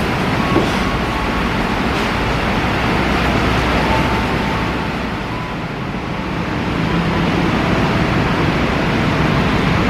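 Argo Lawu executive train's coaches rolling slowly along the platform and coming to a stop, a steady rumble of wheels and running gear with a few faint, brief squeals. The rumble eases a little about five seconds in.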